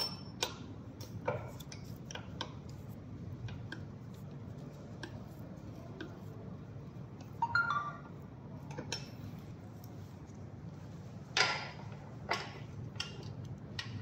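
Scattered light clicks and metallic clinks of tools and e-bike parts being handled, with a small cluster of clinks about halfway through and a louder knock near the end.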